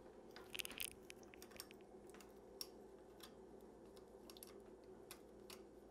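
Faint, scattered light clicks of a bicycle chain being handled and fed by hand through a Shimano Acera rear derailleur's pulleys, a small cluster of them about half a second in, then only occasional single ticks over quiet room tone.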